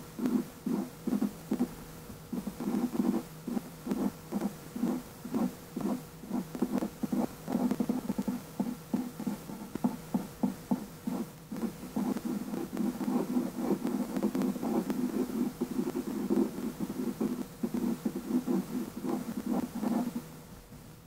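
Marker pen scratching across drawing paper in quick back-and-forth hatching strokes, several a second, stopping just before the end.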